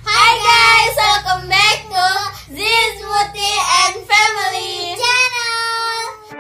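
Young girls and a woman singing a short opening chant together in high voices, in several quick sung phrases.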